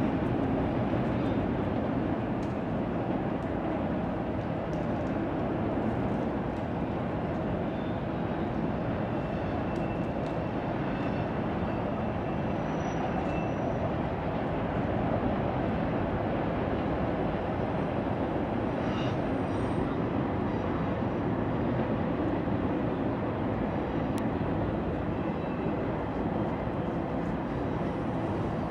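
A freight train rolling steadily across a railway bridge: an even, unbroken noise of wagons running on the rails, with a few faint, brief high tones now and then.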